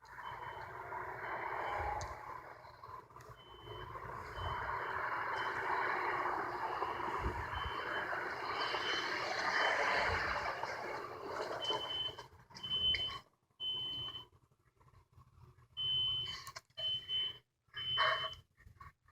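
Building fire alarm sounding a thin, high beep that repeats about once a second, with the beeps lengthening into longer tones in the second half. A steady rushing noise lies under it at first and drops away about two-thirds of the way through.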